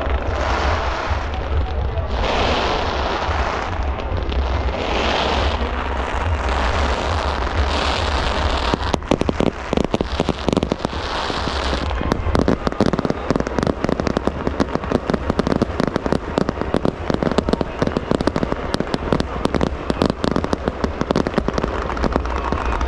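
Fireworks display: hissing swells about every two and a half seconds, then from about nine seconds in a dense, rapid crackling of many small bursts.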